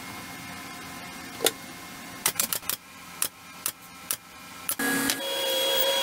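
Pneumatic brad nailer firing a quick run of shots into plywood, about a dozen sharp pops. Near the end a louder steady motor hum starts, fitting the air compressor kicking on to refill.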